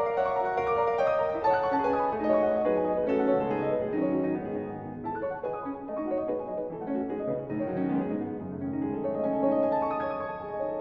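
Background piano music: a piano playing a run of melody notes over chords.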